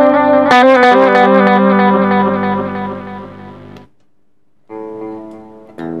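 Electric guitar chords played through a TC Electronic Plethora X5 pedalboard with its HyperGravity compressor, ringing out and fading. The sound cuts off suddenly just before four seconds in, then a softer chord comes in, followed by a louder one near the end.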